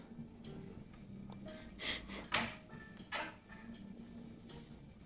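A kitten playing with a feather toy on a tile floor: three brief scuffs from paws and toy on the tiles around the middle, the second a sharp tap.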